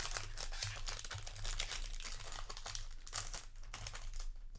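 Foil wrapper of a Magic: The Gathering booster pack crinkling in the hands as the pack is opened and the cards slid out: irregular crackles that thin out near the end.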